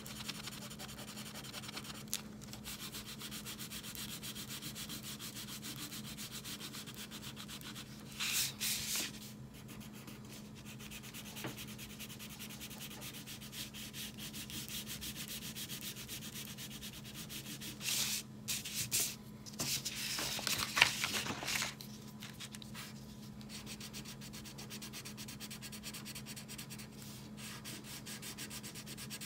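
Crayon scribbling on paper in fast back-and-forth colouring strokes, with a few louder, scratchier stretches about a third of the way in and again around two-thirds through.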